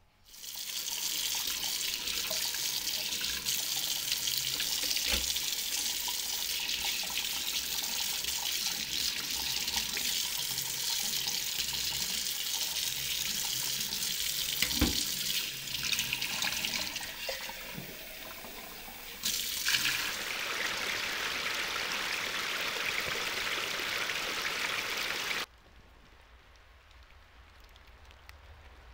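Tap water running hard into a stainless steel sink while hands work under the stream. The flow sound drops for a few seconds past the middle, comes back, then cuts off suddenly about three-quarters of the way through. Two short knocks sound against the sink along the way.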